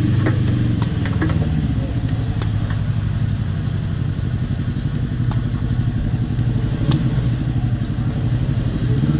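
A motorcycle engine idling steadily, with a few light sharp clicks over it.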